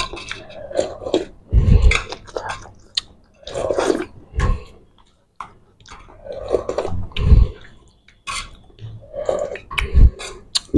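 Eating sounds: chewing, and slurping of leftover fish-curry broth drunk from a tilted stainless steel platter, with four dull thumps spread about three seconds apart.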